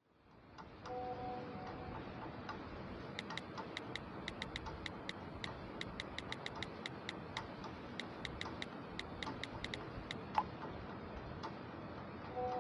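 Ticking clicks, several a second, over a steady hiss, with one louder click near the end of the run. About a second in, a brief steady tone sounds.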